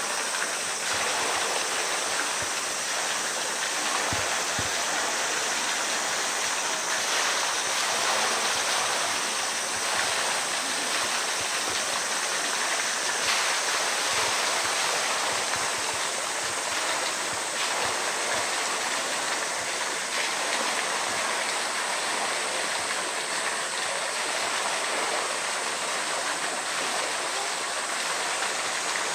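Steady sound of water pouring into a pool, an even rush that does not change.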